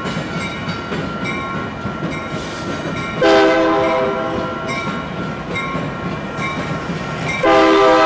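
Union Pacific freight locomotive air horn sounding over the rumble and wheel clatter of the passing train: one long blast begins about three seconds in and fades slowly, and another starts near the end.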